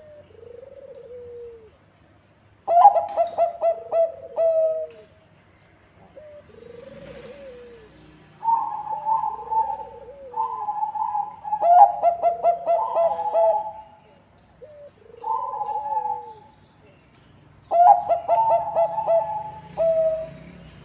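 Bangkok-type zebra doves (perkutut) cooing: three loud, rapid stuttering coo phrases, the middle one several seconds long, with softer single arched coos, lower in pitch, in the pauses between them.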